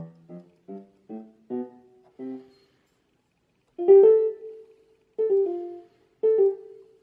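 Casio CT-S300 digital keyboard playing its stereo piano tone. A run of single notes climbs in pitch, then after a short pause come three louder strikes of two notes each.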